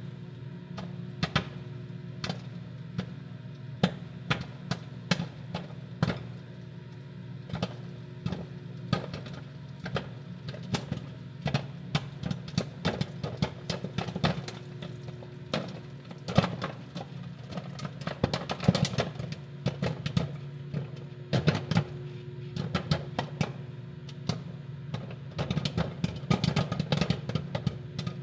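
Microwave popcorn popping inside a running microwave oven: irregular sharp pops over the oven's steady hum, coming thicker around the middle and again near the end.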